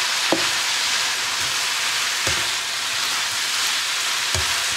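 Mie noodles with chicken sizzling steadily in a hot stone-coated wok as they are stirred and tossed with a slotted plastic spatula. The spatula knocks against the pan three times.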